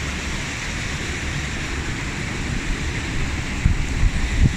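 Steady rushing of a stream and small waterfall over rocks, an even hiss. Low rumbles and a few dull thumps come in near the end, typical of wind or handling on a phone microphone.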